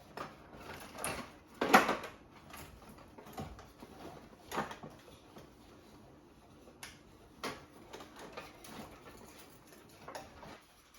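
Irregular clicks, knocks and rustling, as of something being handled; the loudest knock comes about two seconds in.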